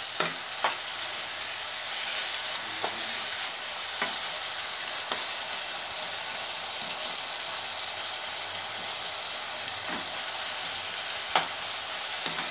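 Elephant apple pieces sizzling in oil in a nonstick pan while a spatula stirs them: a steady sizzle with scattered knocks and scrapes of the spatula against the pan.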